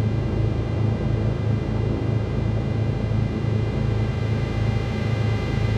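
Cessna 310Q's twin engines idling steadily, a low even throb with no change in speed.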